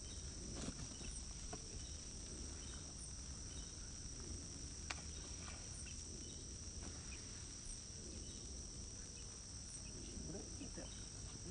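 Steady high-pitched insect trill over a low rumble, with a single sharp click about five seconds in.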